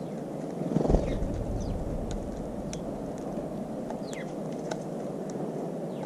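Faint short chirps and quick descending calls of small garden birds over a steady low rumble, with a dull thump about a second in.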